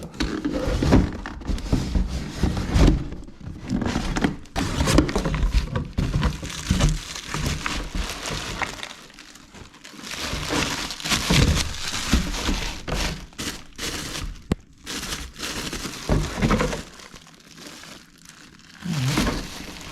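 Plastic wrapping crinkling and intake kit parts knocking and clunking as they are unpacked and handled, in irregular bursts with many sharp knocks.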